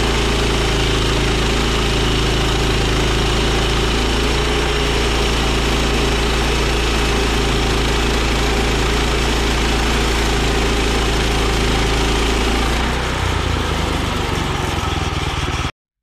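Engine of a Woodland Mills portable band sawmill running steadily with a high hiss over it. The sound shifts about three seconds before the end and cuts off abruptly just before the end.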